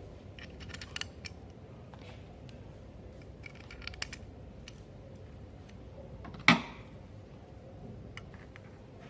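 Scattered light clicks and small knocks of equipment being handled, in short clusters, with one much louder knock about six and a half seconds in.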